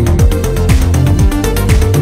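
Electronic dance music with a steady kick-drum beat, about two beats a second.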